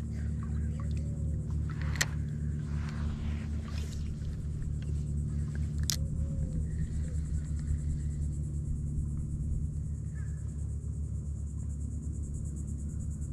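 A steady low mechanical drone with an even, engine-like hum, and two sharp clicks about two and six seconds in.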